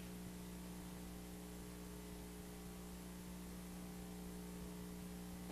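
Steady electrical mains hum with a faint hiss underneath, and no other sound.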